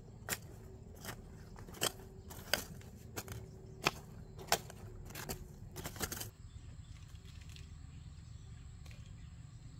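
Hand hoe chopping into loose soil, about one strike every two-thirds of a second, stopping about six seconds in. After that only a faint steady high insect tone remains over quiet outdoor background.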